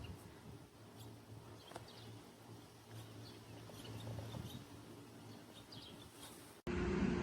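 Small birds chirping faintly here and there over a steady low hum. Near the end the sound cuts off suddenly and is replaced by a louder, steady mechanical hum with one held tone.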